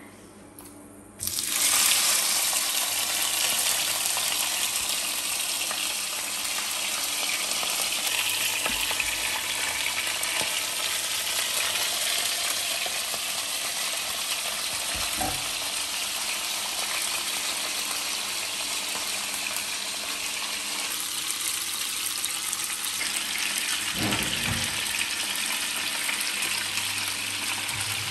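Raw fish pieces laid into hot oil in a frying pan, setting off a loud sizzle that starts suddenly about a second in and keeps on steadily as the fish fries.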